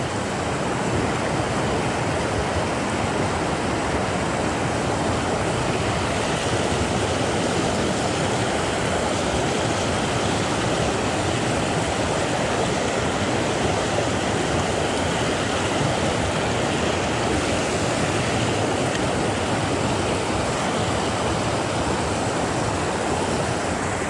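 Rocky freshwater stream pouring over boulders in a small whitewater cascade: a steady, unbroken rush of water.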